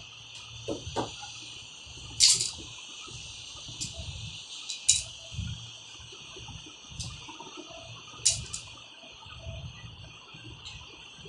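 Sharp knocks from sofa repair work, a few seconds apart, over a steady high hiss.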